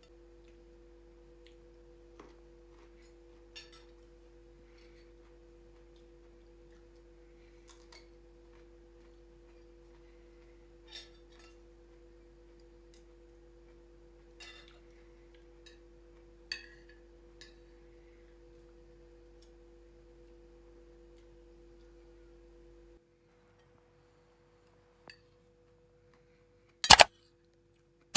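Occasional faint clinks of spoons and forks on china plates during a meal, over a faint steady hum that stops near the end. Then a few sharp, loud mouse-click sound effects.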